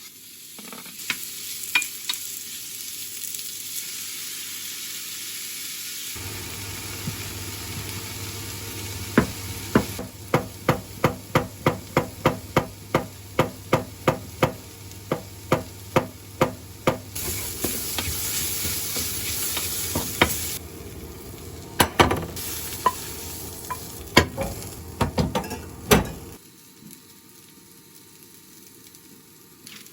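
Food sizzling in a frying pan while a utensil stirs and knocks against the pan, first in a steady run of about two knocks a second for several seconds, then in scattered knocks. The sizzle stops suddenly near the end.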